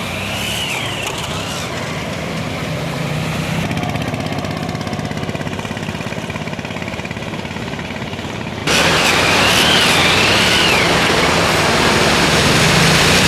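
Autorickshaw engine running, with a sudden jump to louder, harsher sound about two-thirds of the way in. A wavering high tone sounds twice over it, once near the start and once just after the jump.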